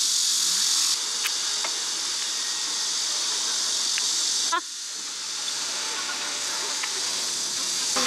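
Cicadas buzzing in a steady, high-pitched drone, with a few light clicks.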